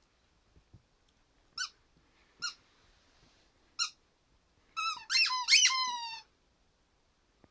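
A rubber squeaky toy squeezed in a small dog's jaws: three short squeaks about a second apart, then a quick, louder string of squeaks near the end.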